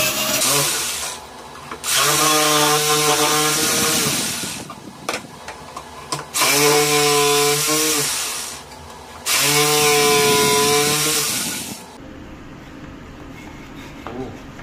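Corded jigsaw cutting a thin plywood strip in short runs. The motor starts and stops four times: once stopping about a second in, then three cuts of about two seconds each with brief pauses between.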